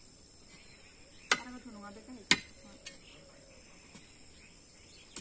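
Metal spade blade driven into stony garden soil: a sharp crunching strike about once a second, five in all, the two loudest a little past one and two seconds in. A steady high-pitched insect trill carries on underneath.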